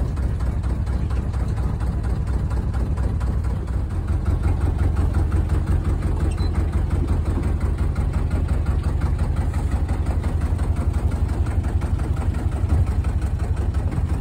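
A small fishing boat's engine running steadily as the boat heads out across the water, a low drone that gets a little louder about four seconds in.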